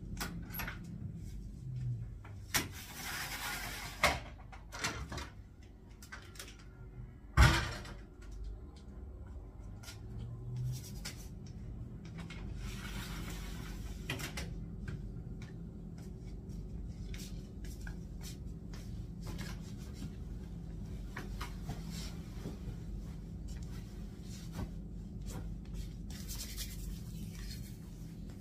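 Household handling sounds as a roller shutter and a French window are opened: rustling and rattling in bursts, a few knocks with a sharp loud one about seven seconds in, over a low steady hum.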